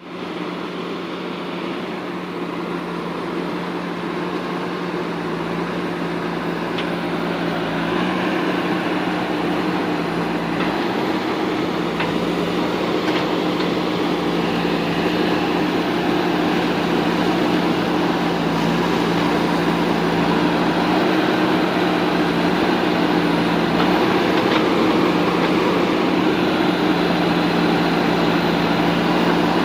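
Diesel engine of a JCB 3DX backhoe loader running steadily with a constant hum, slowly growing louder, with a few faint clinks.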